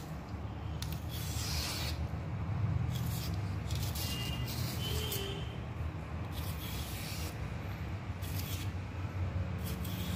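Fingers peeling the skin off a taro (elephant ear) stem: intermittent rubbing and stripping strokes, each up to about a second long, over a steady low rumble.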